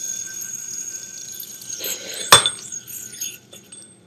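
A ball-bearing yoyo sleeping on its string, giving a steady high whine with several ringing tones that fade near the end. A single sharp click comes a little past halfway.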